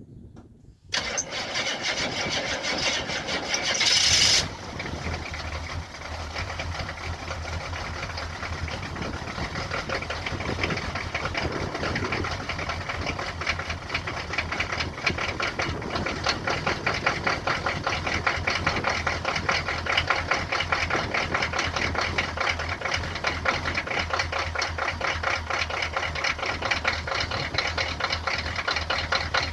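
6.2-litre V8 diesel cold-starting: it fires about a second in, runs loud and harsh for a few seconds, then settles into a rough idle with steady, rapid diesel clatter.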